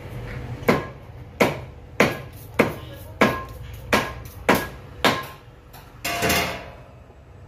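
A steel meat cleaver chopping beef on a wooden log chopping block: eight sharp strikes at a steady pace, roughly one every 0.6 seconds, followed about six seconds in by a half-second scrape.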